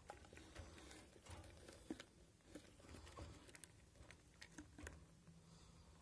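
Faint, scattered rustling and small clicks of budgie chicks shifting about on wood-shavings bedding in a nest box.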